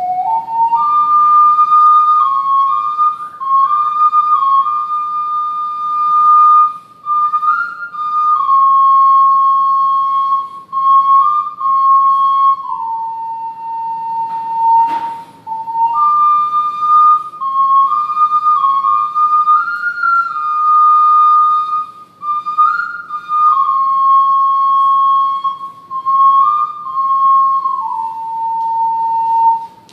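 Ocarina playing a slow melody of held, pure-toned notes that step up and down, one note at a time. A single short click about halfway through.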